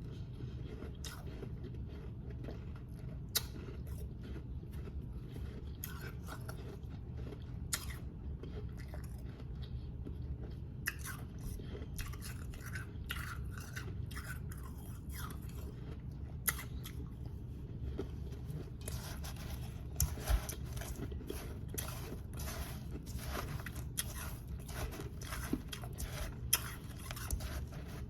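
A person biting and chewing powdery, snow-like ice close to the microphone: sharp crunches, sparse at first and coming thicker and faster toward the second half, over a steady low hum.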